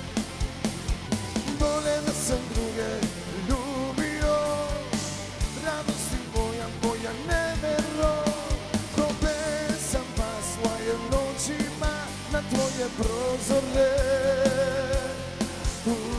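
Live Balkan pop-folk music: a Korg Pa4X arranger keyboard plays a wavering melody over a steady drum beat, with a man singing into a microphone.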